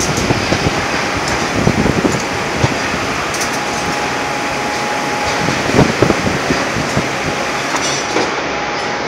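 Steel re-rolling mill running: a continuous heavy machinery rumble with frequent metallic knocks and clatter.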